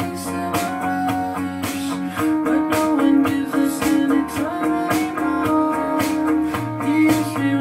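Music with guitar and a steady beat played through a pair of floor-standing loudspeakers and heard in the room. The sustained chords shift to a new one about two seconds in.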